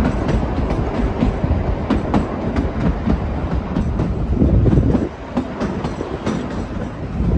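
Kalka–Shimla narrow-gauge toy train running on the rails: a steady low rumble with frequent irregular clicks and knocks from the wheels and cars, growing louder about four and a half seconds in.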